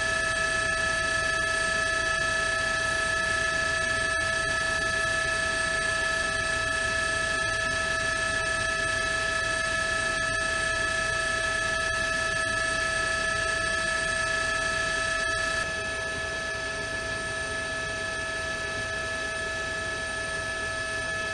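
Steady helicopter noise, a high turbine whine with several fixed tones over a constant rushing bed, stepping down slightly in level about sixteen seconds in.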